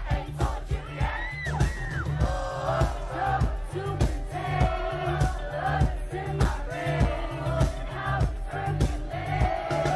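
Live pop music: female group vocals singing a melody over a heavy electronic beat pounding about twice a second.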